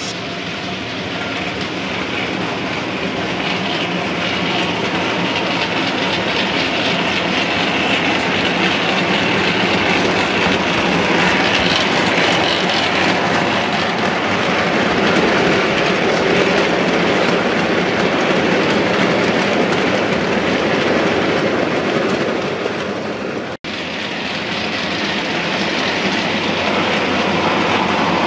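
Model train of HAA merry-go-round coal hopper wagons running along the layout's track: a steady rolling rumble of wagon wheels on rail. The sound cuts out for an instant about three-quarters of the way through.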